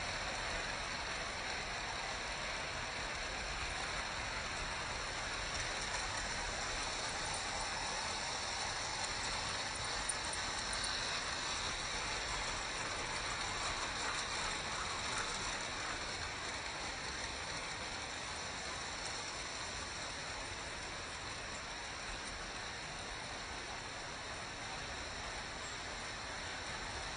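Märklin model trains running on metal M-track: a steady, even rolling hiss of wheels on the rails.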